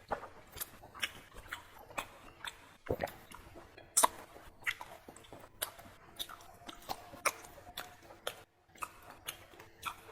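Close-miked chewing and biting of fatty stewed pork belly and pickled cabbage, an irregular run of sharp mouth clicks, the loudest about four seconds in.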